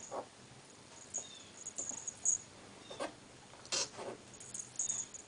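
Two ferrets wrestling on a shaggy rug: irregular soft scuffles and taps, a few brief faint high squeaks, and a light high jingle from a collar as they tussle.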